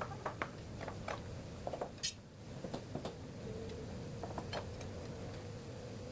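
Scattered light clicks and knocks, about a dozen, irregularly spaced, with a short hiss about two seconds in, over a faint steady hum.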